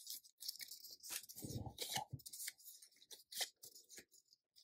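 Faint crinkling and clicking of cardboard-tagged embroidery floss skeins being handled and fanned out by hand, a string of short irregular rustles.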